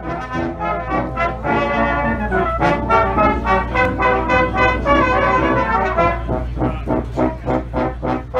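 Brass band with trombones, tubas and cornets playing a tune in full harmony. Held chords give way about six seconds in to short, evenly spaced notes, about three a second.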